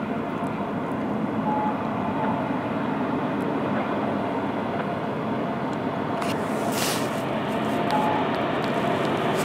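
CN freight train's lead diesel locomotives, an SD70M-2 and a GE C44-9W, drawing nearer, a steady engine rumble slowly growing louder.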